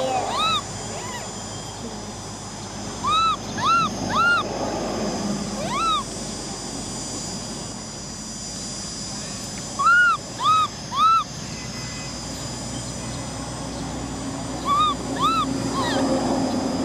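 Baby macaque crying: short, high whimpering calls, each rising and then falling in pitch, in clusters of about three a few seconds apart.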